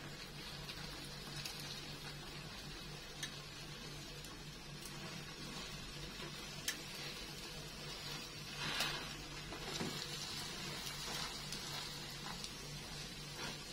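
Beaten eggs frying on low heat in a pan under a round of baladi bread: a low, steady sizzle. A few small clicks, with a brief louder rustle about nine seconds in.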